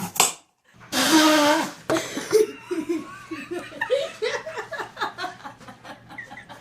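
Laughter in a string of short, repeated pitched bursts, after a loud drawn-out vocal cry about a second in.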